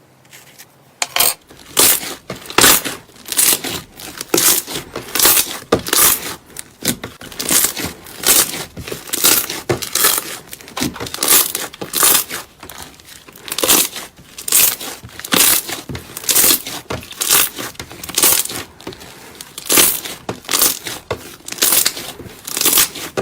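Slime being pressed and squeezed by hand in a steady rhythm, each press a crackling squish, about three every two seconds.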